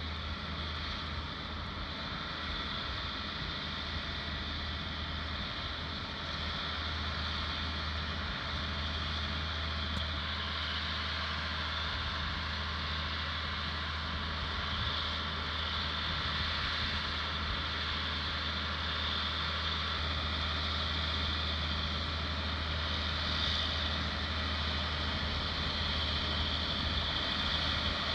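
John Deere tractor engine running steadily as it pulls a six-row corn planter through the field, gradually getting louder as the tractor approaches.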